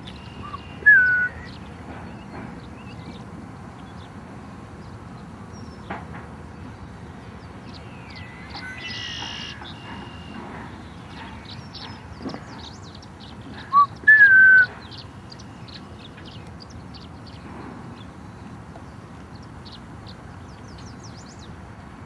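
Male red-winged blackbird singing twice, a short loud song about a second in and again about fourteen seconds in, each a brief note and then a longer ringing one, with faint bird chirps in between.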